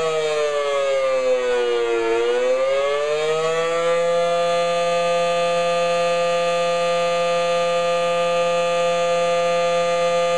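Federal Signal SD-10 outdoor warning siren sounding a tornado drill test: one loud steady tone that sags in pitch for about two seconds and climbs back up, then holds steady.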